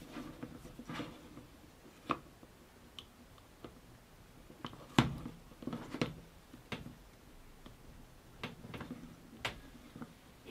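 Scattered small clicks and taps of hands handling electronic parts: a tiny multi-wire plug being fitted and pushed into its socket on a circuit board, and a small metal-cased sensor module being moved about. The loudest click comes about five seconds in.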